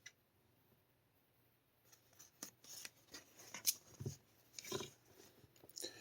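Faint handling sounds of CD cases being picked up and turned over: a dozen or so light clicks and rubs, starting about two seconds in after a near-silent stretch.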